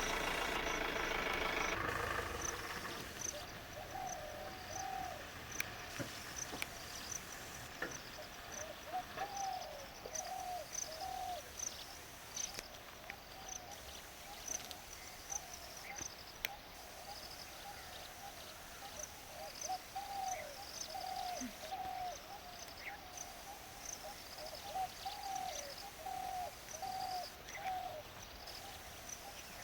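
A bird calling in runs of three or four short, low hooting notes, repeated every few seconds, over the steady high chirping of insects. A louder rumble stops about two seconds in.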